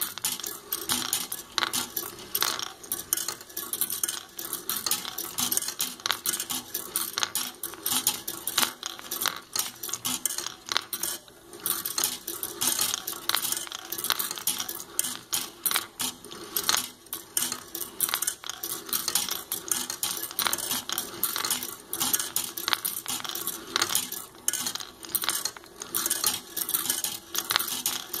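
Steel balls of a wooden marble machine rolling along and dropping onto brass-rod tracks: a constant, irregular stream of metallic clicks and clinks.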